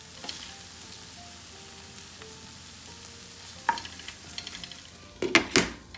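Masala-stuffed okra frying with a steady sizzle in a stainless-steel pan, stirred with a wooden spatula. The spatula knocks against the pan once midway and several times, loudest, near the end.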